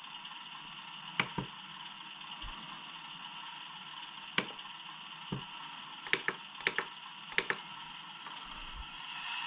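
Plastic button and scroll-dial clicks on a RadioLink RC transmitter as its menus are stepped through, about ten sharp clicks, several in quick pairs.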